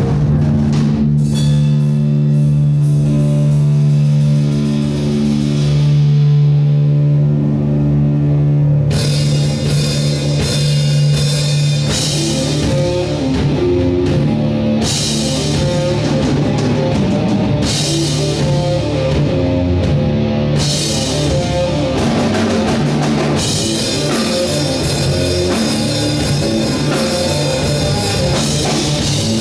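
Live rock band playing electric guitar, bass guitar and drum kit: a song opens on a held low chord that rings for several seconds, then the drums and cymbals come in with the full band about nine seconds in.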